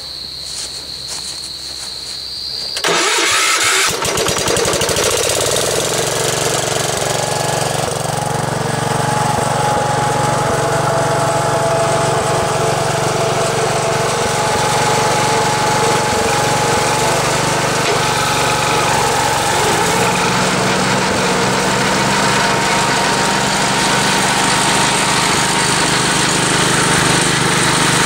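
Gravely Commercial 12 walk-behind tractor engine, which comes in suddenly and loud about three seconds in and then runs steadily. Its pitch steps up about twenty seconds in. Before it starts there is a steady high tone.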